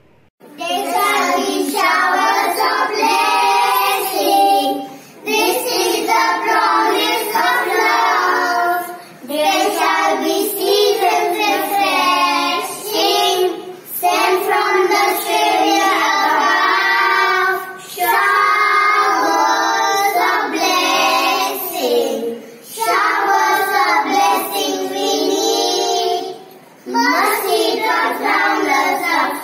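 A group of young boys singing a song together in phrases of a few seconds, with short pauses between them.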